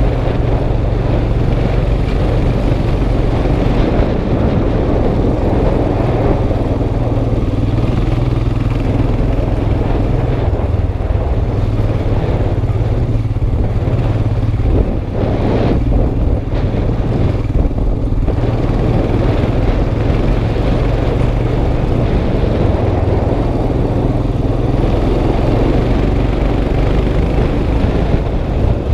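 Motorcycle engine running at low speed along a rough gravel mountain track, heard from a helmet-mounted camera, easing off briefly about halfway through.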